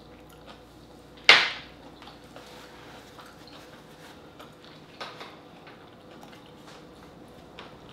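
Seafood boil being handled and eaten by hand: one loud, sharp noise about a second in, then scattered faint clicks and light clatter of shells and food.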